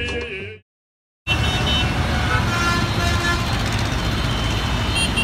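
Music fades out into a moment of dead silence. Then a steady din of city road traffic starts suddenly, with car horns tooting briefly again and again.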